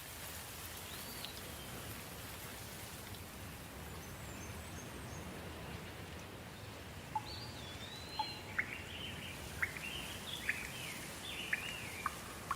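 Steady soft rain falling. A bird gives one whistled note about a second in, then a run of quick chirps and short whistled phrases over the rain from about halfway through.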